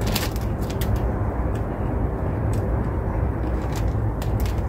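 Steady low rumble of wind on the microphone, with a handful of short sharp crackles as a crisp packet is handled.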